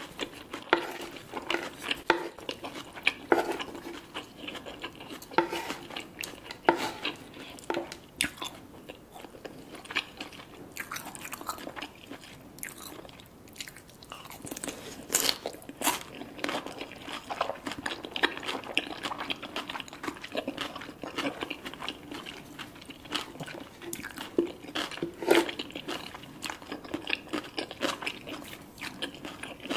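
Close-miked eating: a person biting and chewing crunchy food, with many irregular sharp crunches throughout.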